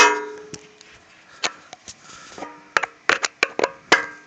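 Metal clinks and taps from hand tools working on a car amplifier's metal casing: a sharp ringing clank at the start, then scattered taps, a quick run of clicks, and another ringing clank near the end.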